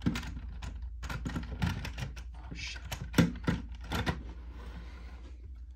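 Plastic Lego bricks clicking and knocking together as a Lego engine model's top plate is handled and set in place: a run of irregular sharp clicks, the loudest a little after three seconds in.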